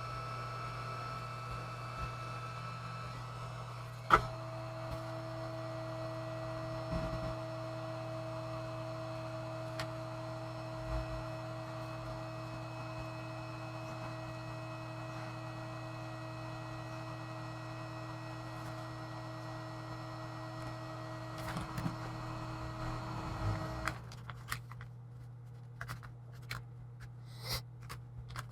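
A steady electrical hum with a whine. A click about four seconds in shifts the whine lower, and near the end it cuts out, leaving a few light clicks and handling sounds.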